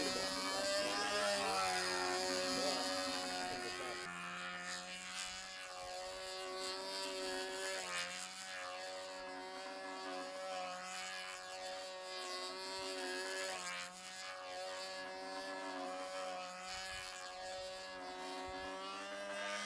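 Control-line stunt model airplane's motor and propeller droning steadily as the plane flies round the pilot on its lines. The pitch rises and falls in a repeating cycle every few seconds as it circles and manoeuvres.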